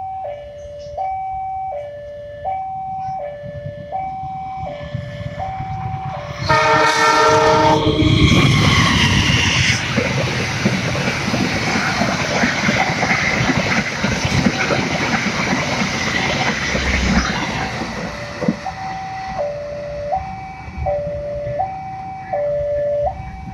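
Level-crossing warning alarm sounding a repeating two-tone signal, about one high-low cycle a second. About six and a half seconds in, the locomotive horn blows for about a second and a half. Then the passing KA Taksaka passenger train's wheels and carriages cover everything for about ten seconds, and the alarm is heard again near the end.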